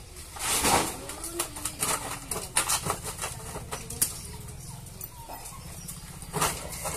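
Irregular knocks and clatter of roofing work on timber rafters, with a louder swishing rustle about half a second in and again near the end.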